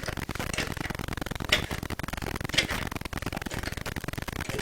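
Two short, sharp clicks about a second apart, over a steady low background noise, as a threaded faucet fitting is screwed on by hand.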